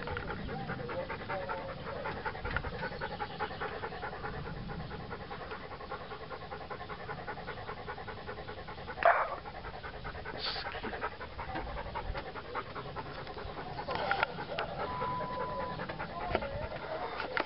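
A dog panting close by in a quick, even rhythm, with one short, louder sound about nine seconds in.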